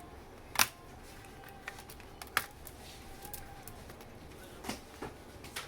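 Sharp plastic clicks and snaps from a laptop's bottom cover being pried loose with a plastic opening tool. The loudest click comes about half a second in, another about two and a half seconds in, and smaller ones follow near the end.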